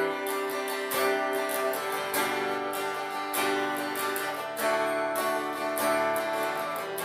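Acoustic guitar strumming chords, playing the instrumental lead-in to a worship song.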